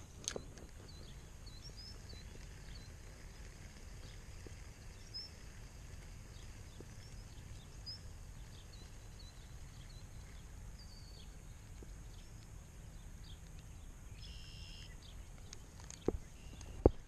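Quiet farm-pond ambience: a steady low outdoor hum with scattered short high bird chirps and a brief two-toned call about two-thirds through. Near the end, a couple of sharp clicks from the baitcasting rod and reel as the cast is readied.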